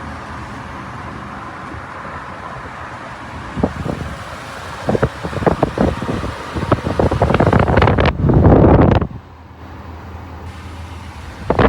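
Steady rush of air from an outdoor tower fan running on high, with irregular gusts buffeting the microphone that grow loudest about eight seconds in, then ease off before picking up again near the end.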